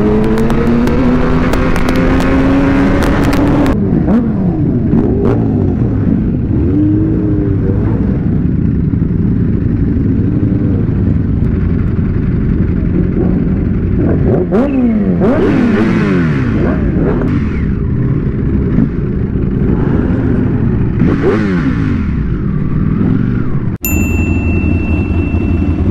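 Superbike engines: one accelerates hard with the revs climbing for the first few seconds, then several sharp revs that rise and fall. A steady high tone comes in near the end.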